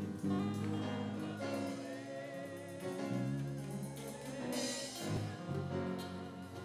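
Church congregation and worship singers singing a gospel hymn together, the voices held on long notes with vibrato.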